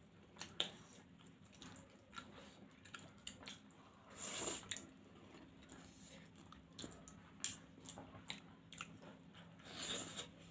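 Close-miked eating of homemade flour noodles: wet chewing with many small clicks, and two louder, longer slurping sounds, about four seconds in and near the end.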